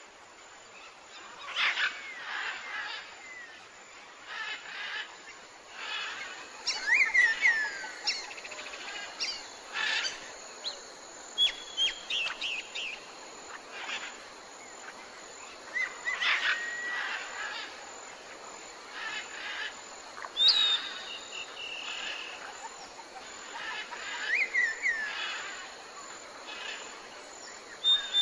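Wild birds calling: short chirps and sliding whistled notes that come every second or two over a faint steady hiss.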